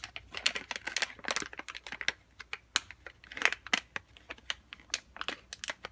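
Crinkling and crackling of a squishy-toy blind-bag wrapper being handled and torn open, a quick irregular run of sharp crackles.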